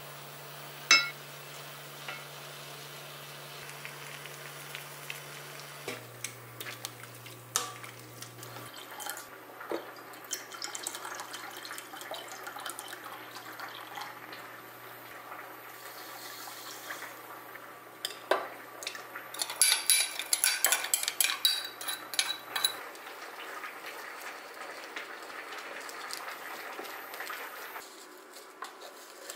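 Home-kitchen cooking sounds: liquid poured and utensils clinking and scraping against a pan, a cup and glass jars, with a run of loud clattering about twenty seconds in.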